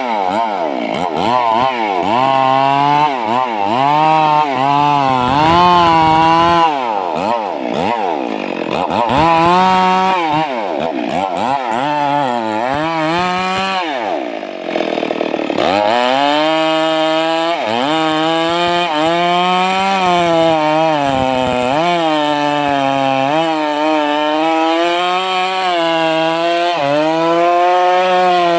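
Stihl MS 382 two-stroke chainsaw cutting into a sengon tree, its engine pitch wavering up and down as the chain loads and frees in the wood. About halfway the engine drops low for a moment, then picks back up and cuts on more steadily.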